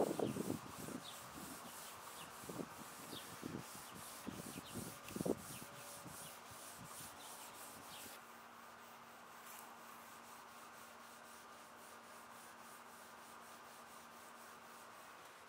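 Fine steel wool rubbed back and forth over a shellac-finished solid walnut tabletop, buffing out the dry shellac with wax. Uneven scrubbing strokes for the first five or six seconds, then fainter rubbing.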